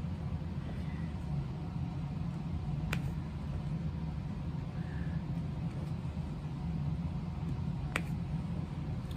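Two sharp, light clicks about five seconds apart, from diamond-painting work as the hand and drill pen press onto the canvas and its plastic film, over a steady low hum.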